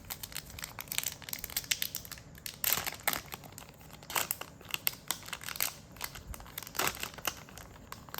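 Card packaging wrapper being crinkled and torn open by hand, a run of irregular crackling rustles.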